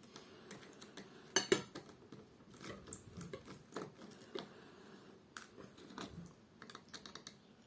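Small clicks and taps of a plastic pedometer being handled and worked at to get its case open, with a sharper click about one and a half seconds in.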